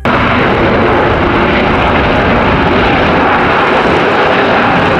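Jet engines of a four-engine Airbus A380 airliner on the runway: a loud, steady rushing roar that starts suddenly.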